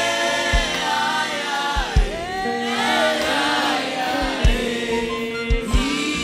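Church worship team and choir singing a gospel chorus, with low drum thumps beating under the voices.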